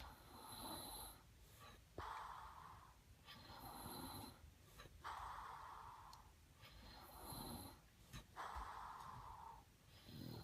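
Faint, slow snoring: three breath cycles about three seconds apart, each a pair of noisy breaths, the first of each pair carrying a faint high whistle.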